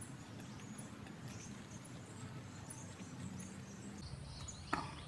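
Quiet outdoor background with faint, scattered high chirps, and a short sound falling in pitch near the end.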